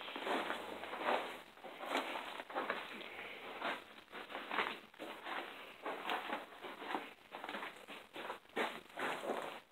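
Footsteps walking over a debris-strewn floor, roughly two steps a second, each step a short scuffing crunch.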